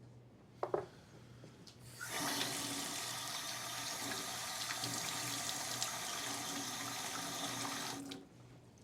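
A tap turned on and water running steadily into a sink for about six seconds, then shut off. A short sharp sound comes about a second before the water starts.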